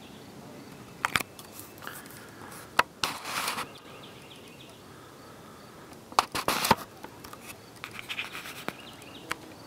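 Scratchy clicks and scrapes in short bursts: about a second in, around three seconds, just after six seconds and around eight seconds. Between them there is a faint steady background.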